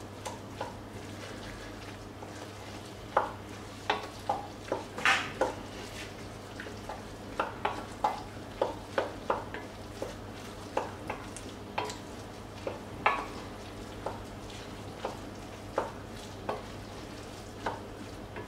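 Wooden spoon stirring risotto in an enamelled cast-iron casserole, giving irregular knocks and scrapes against the pot, about one or two a second, over a steady low sizzle of the simmering rice.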